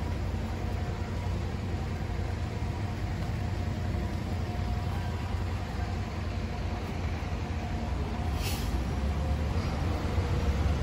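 Honda CBR650R's inline-four engine idling steadily.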